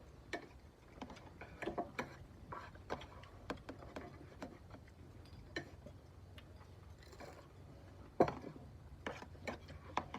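Eating at a shared meal: scattered clicks, taps and smacks of mouths and utensils on dishes, with one louder knock a little after eight seconds in.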